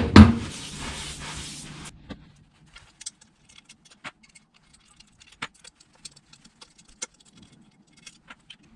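Handling of metal parts on a workbench: two loud knocks at the start, a short stretch of noise with a low hum, then scattered light clicks and clinks.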